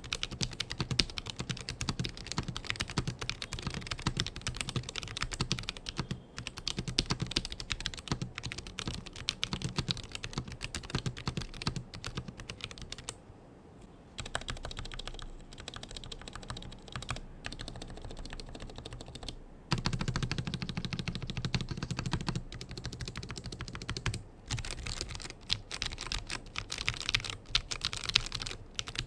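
Fast typing on the XVX L75 Pro low-profile mechanical keyboard with Huano low-profile red linear switches: a continuous run of keystrokes with a few short pauses. The sound is very muted with a slight high pitch, like typing on a laptop keyboard.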